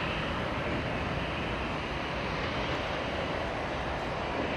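Airbus A319-111 jet engines running at low thrust as the airliner taxis, a steady even noise.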